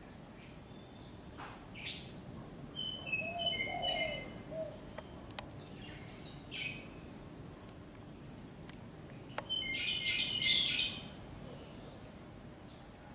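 Small birds chirping and tweeting in scattered short high calls, busiest about ten seconds in. About three seconds in, a dove gives a short, soft cooing phrase, lower in pitch.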